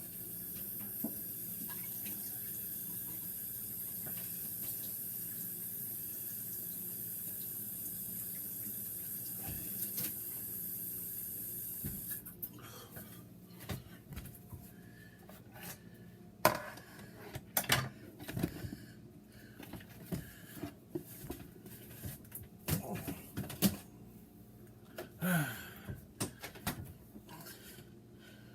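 Kitchen sink tap running steadily as something is rinsed under it, shut off about twelve seconds in. Scattered clinks and knocks of kitchen utensils and dishes being handled follow.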